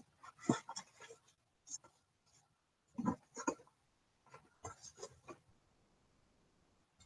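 Light clicks, taps and rubbing from small objects handled at a desk close to the microphone, coming in a few short irregular bursts over the first five and a half seconds.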